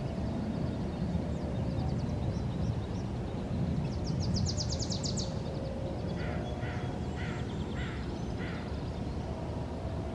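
Birds calling over a steady low outdoor rumble: a rapid high trill about four seconds in, then five short repeated calls about half a second apart.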